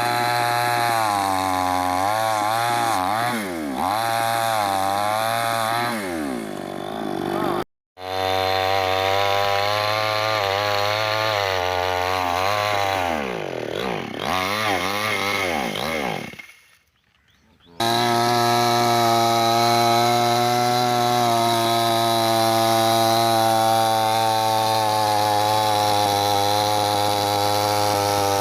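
Chainsaw cutting wood, its motor pitch sagging repeatedly as the chain bites in and recovering between cuts. It cuts out briefly twice, just under halfway and again near two-thirds of the way through, then runs steadily at a constant pitch.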